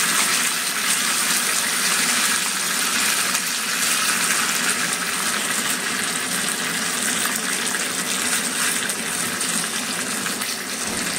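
Hot oil sizzling steadily in a small tempering pan, with mustard seeds, curry leaves and chillies frying in it: a tadka for coconut chutney.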